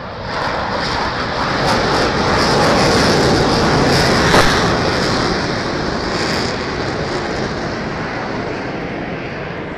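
Jet aircraft flying past: its engine noise swells over a couple of seconds, is loudest about four seconds in, then slowly fades as it passes away.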